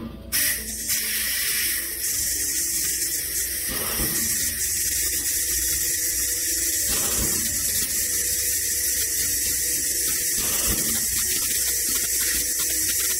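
A steady rushing hiss, with a few faint knocks about every three seconds.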